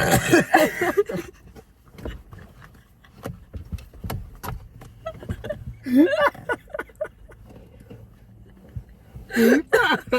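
A person's wordless voice sounds come in short spells at the start, about six seconds in, and near the end. Between them are scattered small clicks and knocks, with a faint low hum in the middle stretch.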